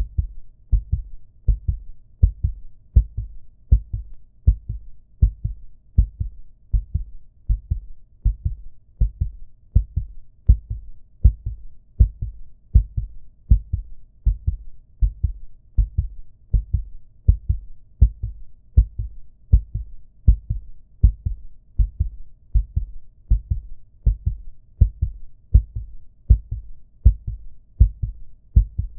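A human heartbeat sound effect: low, soft lub-dub thumps repeating at a steady, even pace of about one beat a second.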